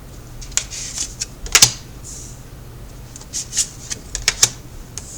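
Tarot cards being handled on a table: a string of sharp card snaps and taps with soft sliding sounds between them.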